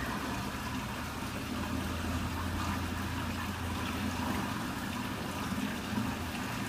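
Water running steadily out of a cooling tower's sump through its open drain, over a steady low hum.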